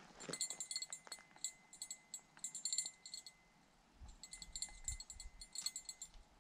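Fishing reel being cranked to take up line after a cast: a fast metallic clicking with a faint whine, in two spells with a short pause between. A few soft low thumps come in the second spell.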